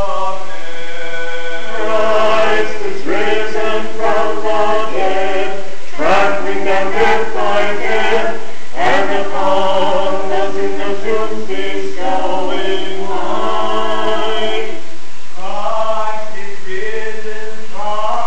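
Mixed church choir of men, women and children singing Orthodox liturgical chant unaccompanied, in several-part harmony.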